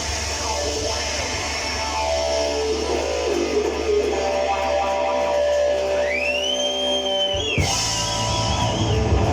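Live blues band music led by electric guitar, with a steady bass under held chords. Late on, a high note glides up and back down, then wavers.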